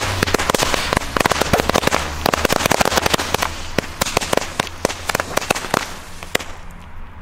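Two strings of mini firecrackers going off together: a rapid, irregular run of small bangs that thins out and stops about six seconds in.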